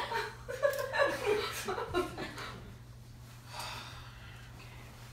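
A sharp knock or clap right at the start, then a person chuckling and laughing with audible breaths for about two seconds, fading to quieter breathing and murmurs.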